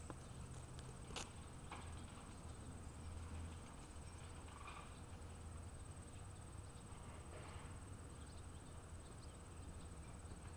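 Faint outdoor background: a low steady rumble, a thin steady high-pitched tone, and a few soft clicks.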